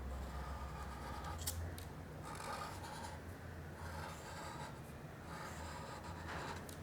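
Pen strokes scratching on paper: a series of short drawing strokes about one a second, with a few sharp clicks between them.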